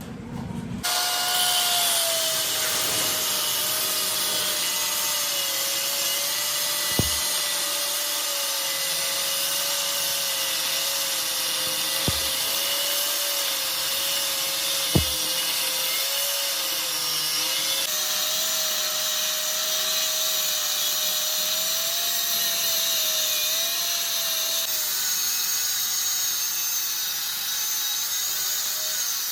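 A power tool running steadily with a wavering whine, with three sharp clicks partway through.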